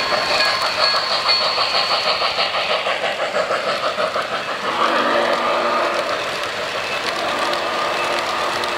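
O-scale model of the Norfolk & Western J Class steam locomotive, its onboard sound system playing rhythmic steam chuffing as it passes, over the rolling of wheels on three-rail track. About four and a half seconds in the chuffing fades as the passenger cars roll by, and a steady tone comes in.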